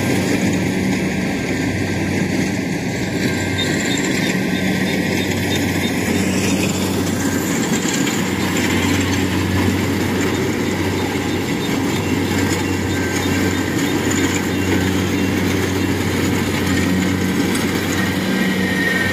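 Kubota DC-70 Plus combine harvester's diesel engine running steadily as it cuts rice through soft, waterlogged ground.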